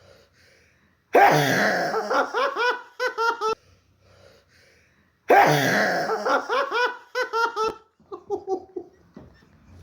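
People laughing hard in two long bursts, the first about a second in and the second about five seconds in, each a quick run of pulsing 'ha' sounds. Softer laughter follows near the end.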